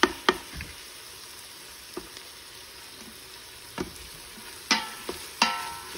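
Chopped onions and red bell peppers sizzling in oil and butter in an Instant Pot's stainless steel inner pot on sauté, stirred with a wooden spoon. The spoon knocks and scrapes against the pot several times, the two loudest knocks near the end ringing briefly.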